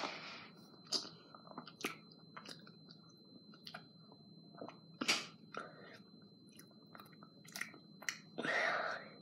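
A person chewing a mouthful of banana with cinnamon: soft, wet mouth clicks and smacks, with a louder smack about five seconds in and a short breathy noise near the end.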